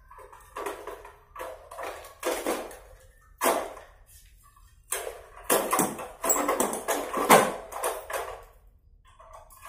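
Rattling and knocking from a homemade motorbike's frame and seat as they are pushed and shifted by hand, a run of irregular clanks that is busiest in the middle.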